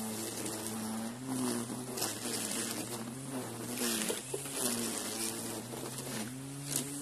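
Battery-powered whipper snipper (string trimmer) running with a buzzing electric-motor hum. Its pitch sags and recovers a few times as the line bites into grass, with short hissing swishes of cut grass.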